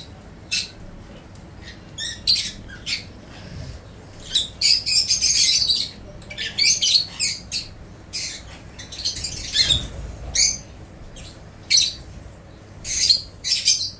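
Hill myna chicks giving short, harsh, hissy squawks on and off, with denser runs of calls about five seconds in and again near ten seconds.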